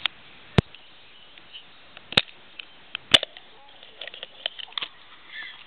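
Handling noise from a handheld camera: sharp clicks and knocks from fingers and grip on the body. Four loud ones come in the first three seconds and smaller ones follow near the end, over a faint steady hiss.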